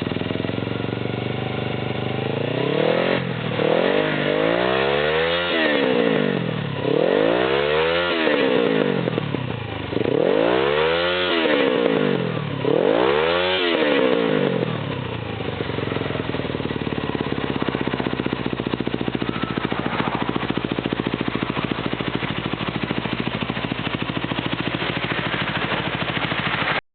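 Suzuki GS500E parallel-twin engine through a handmade Vick exhaust, blipped up and back down about four times, each rev rising and falling, then settling to a steady idle for the rest of the time.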